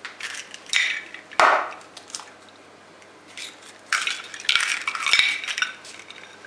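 Eggs being cracked open over a plastic mixing bowl, then the empty eggshells set down and stacked on a china plate, with a run of light clinks and scrapes against the plate.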